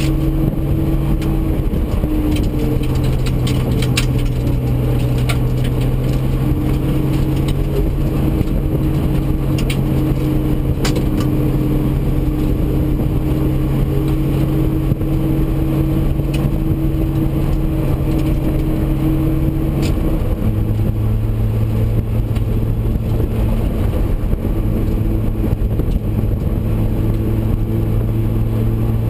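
Nissan R32 Skyline GT-R's turbocharged straight-six running hard at track speed, heard from inside the cabin. The engine note holds steady, dips and recovers briefly about two seconds in, and drops to a lower pitch about twenty seconds in. Scattered sharp clicks sound over the engine.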